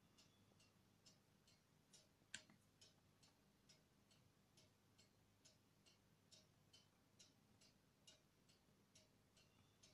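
Faint, even ticking, a little over two ticks a second, with one sharper click a little over two seconds in.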